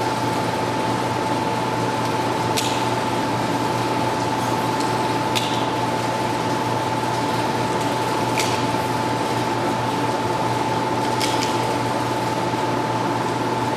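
Faint sharp clicks about every three seconds, typical of .45 ACP cartridges being pressed one by one into a Glock 36 magazine, over a steady hiss and a thin steady hum.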